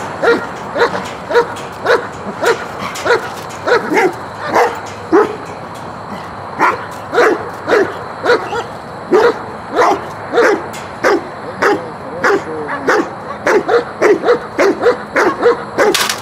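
East European Shepherd barking repeatedly, about two barks a second with a short break about five seconds in: guard barking at a decoy in a bite suit during protection training.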